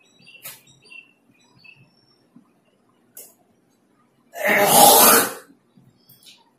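A single loud cough, a harsh burst about a second long a little past the middle, with a few faint clicks before it.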